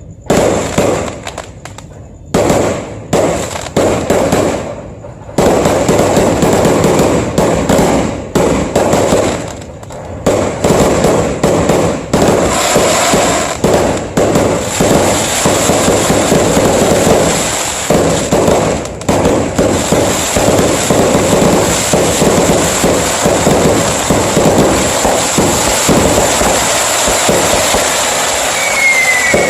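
Fireworks going off: separate bangs and cracks for the first few seconds, then an almost continuous barrage of crackling from about five seconds in. A whistle falls in pitch near the end.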